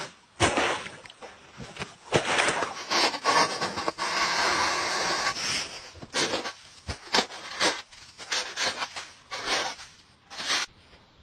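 Packed snow crunching and scraping in short irregular strokes, with one longer scrape of a second or so near the middle.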